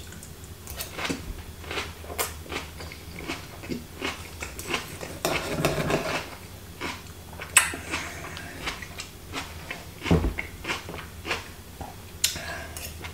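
A person chewing bites of grilled bell pepper and steak, with a knife and fork scraping and clicking on a plate as the steak is cut. There is a sharp click a little past halfway and a dull thump later.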